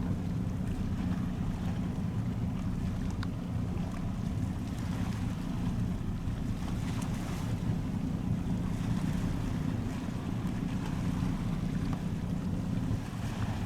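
Steady low rumble of a boat's engine running at the harbour, with wind buffeting the microphone.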